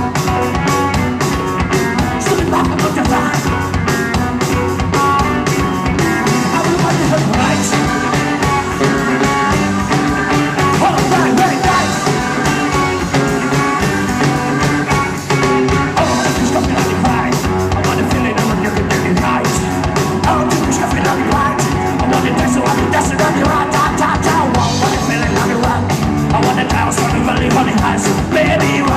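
Live rock band playing loud on amplified electric guitar, bass guitar, keyboard and drum kit, the drums keeping a busy, steady beat.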